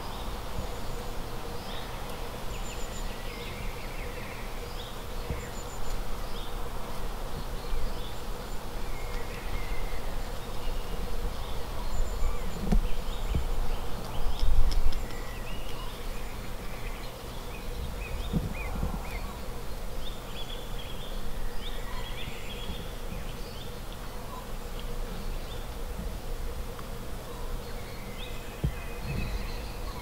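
Outdoor ambience: small birds chirping and calling now and then over a steady low hum. A few low thumps come through, the loudest about halfway through.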